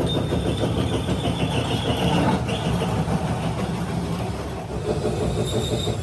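A workshop machine running steadily, a low mechanical drone with rough hiss and a faint high whine in the first couple of seconds.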